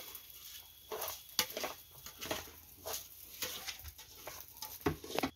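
Rice being stirred in a metal pot, irregular scraping and rustling strokes of the grains against the pot.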